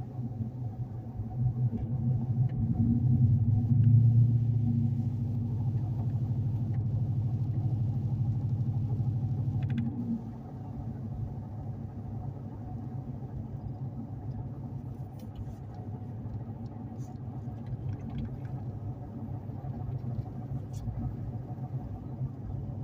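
Pickup truck engine and road noise heard from inside the cab while driving, a steady low drone that grows louder a few seconds in and drops off sharply about ten seconds in.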